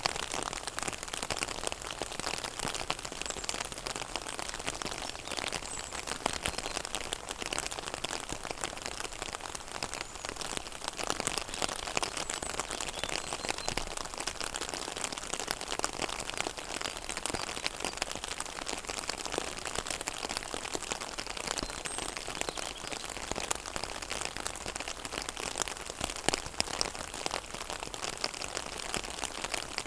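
Rain falling on a pond: a steady hiss of drops hitting the water, with many small, separate patters and ticks scattered through it.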